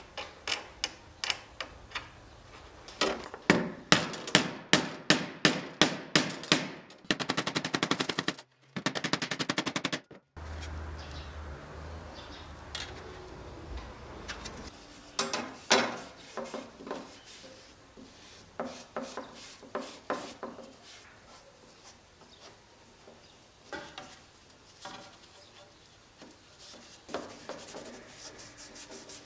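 Metal screws and a wing nut clicking and tapping as a hand saw's handle is fastened to its blade. A run of fast, even clicking comes near the middle, followed by a few seconds of low hum, then scattered light clicks.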